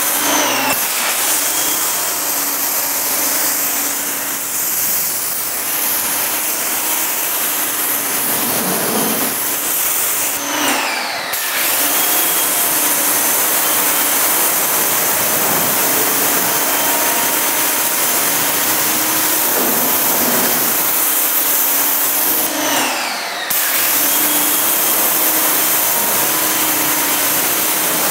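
Active 2.0 electric pressure washer spraying a steady hissing jet of water while its motor and pump hum. About ten seconds in and again about twenty-three seconds in, the spray stops briefly and the motor's pitch falls, then it picks up again.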